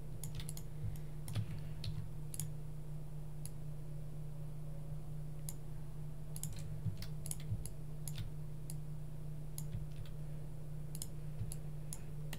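Irregular clicking from a computer mouse and keyboard at a desk, several clicks a second in places, over a steady low hum.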